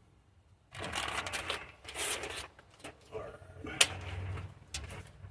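Rustling and handling of bundled vehicle wiring, in a few bursts of about a second each, followed by a couple of sharp clicks near the end.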